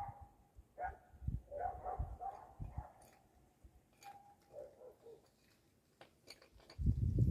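Kitten giving short, high mewing cries about once a second while eating, with a few sharp clicks between them. A loud low rumble starts near the end.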